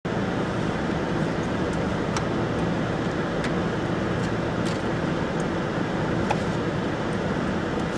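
Steady low rumble of a Kombi van's engine idling, heard from inside the cabin, with a few faint high ticks here and there.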